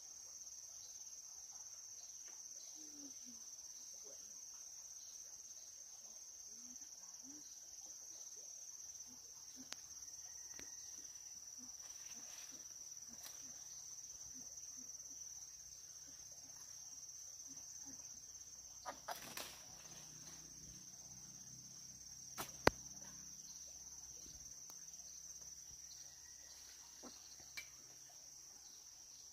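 Faint steady high-pitched chirring of insects. A few sharp knocks and rustles break in, the loudest about two-thirds of the way through.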